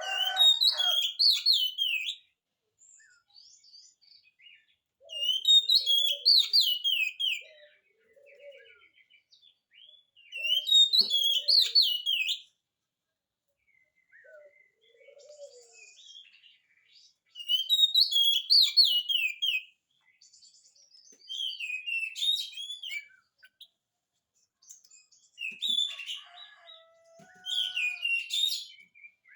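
Oriental magpie-robin in full song: about seven loud, varied phrases of two to three seconds each, separated by short pauses with a few soft lower notes between them.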